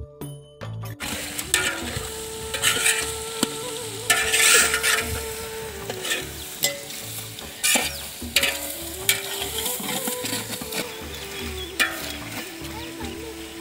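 Chicken pieces and onions frying and sizzling in a large metal pot over a wood fire, stirred with a long perforated metal ladle that scrapes against the pot in repeated strokes as the rock salt just added is mixed in. It starts about a second in.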